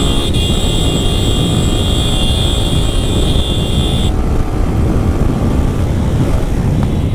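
Motorcycle riding at speed: engine running under wind rush buffeting the handlebar-mounted microphone. A steady high whine rides over it and cuts off suddenly about four seconds in.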